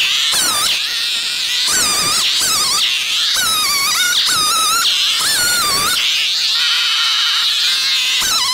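Rezer FGS-5200MG 52 cc two-stroke chainsaw running at high revs while cutting birch logs. Its whine wavers up and down continuously as the chain bites into the wood and frees up.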